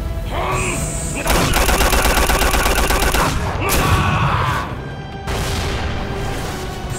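Anime Stand-rush punch barrage: a rapid-fire run of punch impacts lasting about two seconds, with shouted cries of "Muda!" before and after it.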